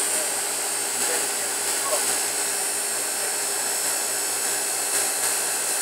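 Steady mechanical hiss, like moving air, with a faint low hum underneath.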